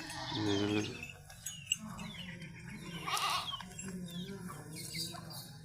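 Goats bleating: a short low bleat near the start and a louder, wavering bleat about three seconds in, with faint short high chirps in the background.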